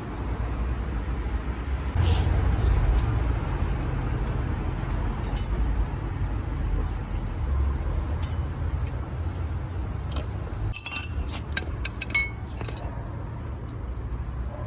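Light metallic clinks and clicks of tools and brake parts being handled, bunched together about ten to thirteen seconds in, over a steady low rumble.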